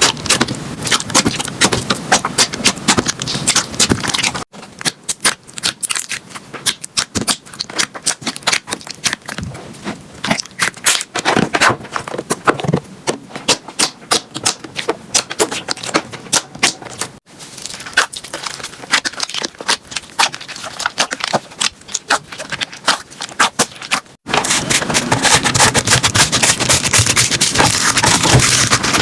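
Slime being squeezed, poked and stretched by hand, giving rapid sticky crackles, clicks and small pops. The texture changes abruptly three times as one clip cuts to the next, and it becomes a dense, louder crackle for the last few seconds.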